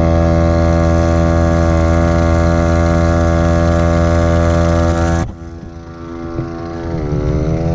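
Viair 88P portable 12-volt air compressor running steadily as it pumps up a flat tire, a loud even hum. About five seconds in the sound cuts off abruptly to a quieter, rougher run whose pitch briefly sags and recovers near the end.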